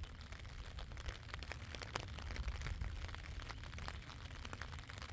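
Rain falling on an umbrella held over the camera: a steady hiss made of many irregular small ticks, with a low rumble underneath.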